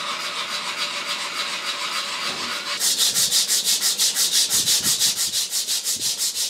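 Sandpaper being worked by hand over a wooden rifle stock built up with Bondo body filler. First comes a steady scratchy hiss from a sanding block. About three seconds in, a louder, even back-and-forth rasp starts as a strip of abrasive is pulled shoeshine-style around the grip, at about four strokes a second.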